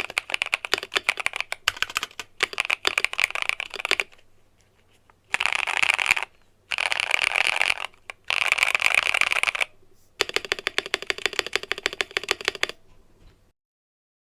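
Akko Mod007 mechanical keyboard with an FR4 plate, Green Tea switches and XDA keycaps, modded with painter's tape and PE foam for a poppy sound, typed on in several fast bursts of clicking with short pauses between. The typing stops near the end.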